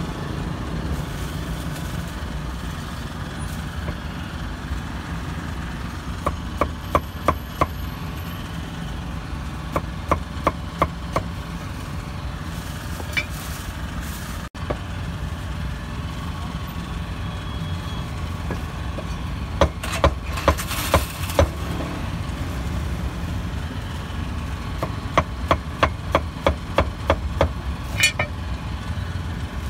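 Cleaver chopping on a wooden block in quick runs of sharp knocks, about four a second, repeated several times, over a steady rumble of street traffic.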